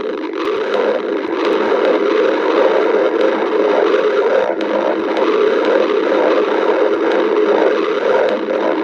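A person's stomach growling: continuous, loud gurgling and rumbling.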